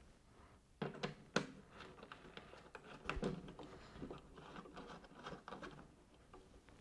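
Handling noise of the magnetic loop's end connector being fitted and screwed onto an SO-239 socket on the tuner box: a few sharp clicks and knocks about a second in and again around three seconds, then lighter scratching and rattling as the coupling is turned.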